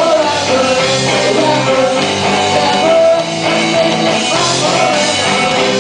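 Rock band playing live, with a singer over electric guitar.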